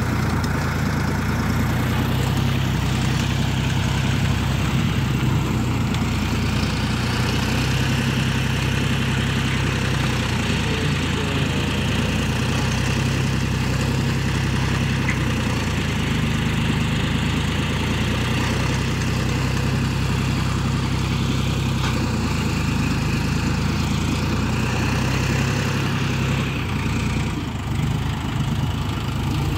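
Tractor diesel engine running steadily while driving a tractor-mounted earth auger (post-hole digger) that is drilling into the soil; the low engine note swells and eases gently every few seconds.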